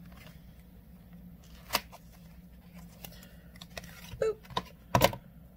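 Makeup palette packaging being handled and opened by hand: a sharp click about two seconds in, then a run of clicks, crinkles and rustles near the end, the loudest just before it finishes.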